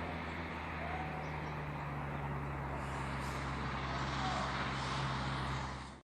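A steady, low engine hum with a noisy wash over it, cut off suddenly at the end.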